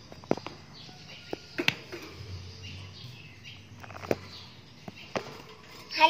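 A handful of sharp, irregular clicks and taps around a wire bird cage as a small caged bird moves about on its perch and bars.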